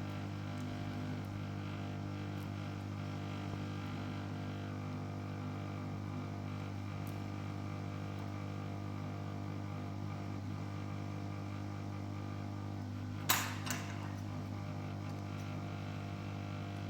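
Steady electrical hum with a strong low tone and many overtones, broken by one sharp tap about thirteen seconds in.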